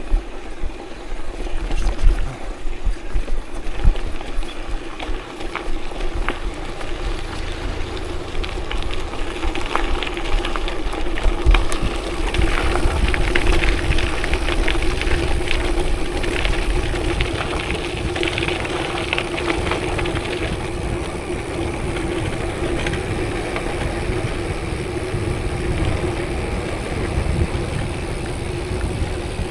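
A vehicle travelling along an unpaved forest road: a steady running hum with scattered rattles and knocks, and a low rumble that could be wind on the microphone. The noise is louder from about twelve to twenty seconds in.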